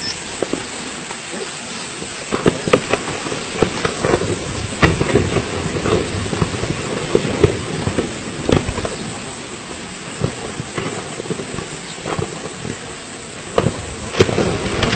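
Mount Kelud volcano erupting: a continuous rushing roar with many sharp cracks and pops through it, growing denser and louder about two seconds in.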